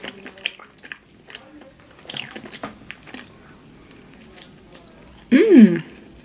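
Close-miked eating: scattered bites, wet chewing and light crunching of fast food. About five seconds in comes one brief, loud voiced sound, a short hum or utterance bending in pitch.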